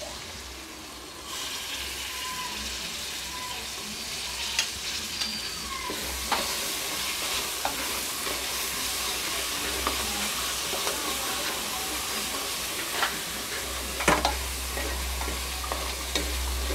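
Chopped onions, green chillies, tomato, capsicum and mint leaves sizzling as they fry in oil, stirred with a spatula that scrapes and clicks against the pan. The sizzle grows louder about a second in and again around six seconds.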